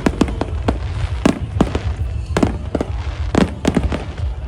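Aerial fireworks bursting: a quick, irregular run of sharp bangs, often two or three close together, over a continuous low rumble.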